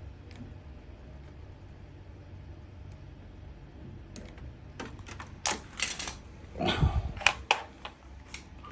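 A low steady hum. From about five seconds in, a cluster of sharp clicks, taps and a short scrape from handling.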